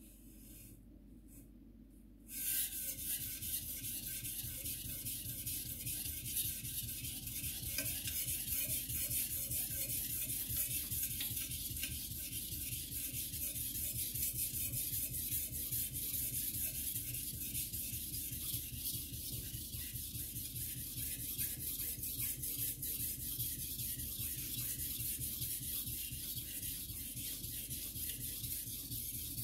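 Carbon-steel (Shirogami #2) gyuto being sharpened on a whetstone: a scratchy rasping of steel on stone in quick back-and-forth strokes. It starts suddenly about two seconds in and then keeps up steadily.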